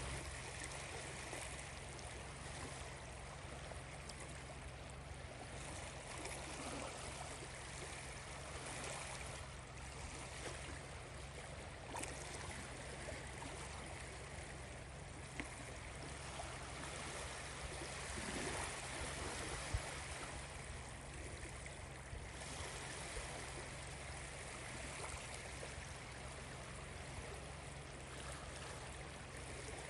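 Small lake waves washing steadily against the shore, with one short tap about twenty seconds in.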